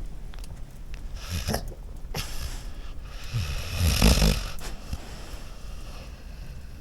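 A sleeping dog snoring: a few snoring breaths, the longest and loudest about three to four seconds in.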